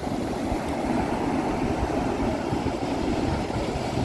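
Surf washing onto a shallow sandy beach: a steady rushing noise with no separate splashes standing out.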